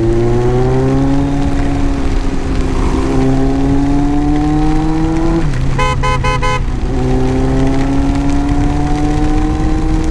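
Superbike engine pulling in gear, its pitch climbing slowly and dropping at each upshift, under a steady rush of wind and road noise. About six seconds in, a horn sounds several quick beeps.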